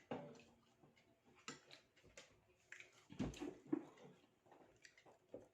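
Faint, scattered eating sounds: soft chewing and smacking with small clicks, loudest a little past halfway.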